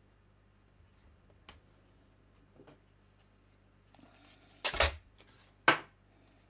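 Crafting tools being handled on a manual die-cutting machine's platform: a light click, then a loud double clack about four and a half seconds in and a single sharp clack a second later, like a die or cutting plate being set down.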